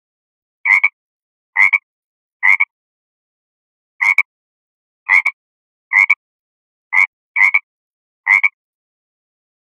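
Frog croaking: nine short croaks, each a quick double note, at roughly one a second with a longer pause after the third.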